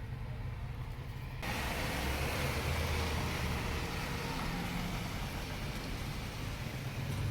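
Street traffic: a low, steady vehicle engine rumble, joined about a second and a half in by a sudden, steady hiss that lasts to the end.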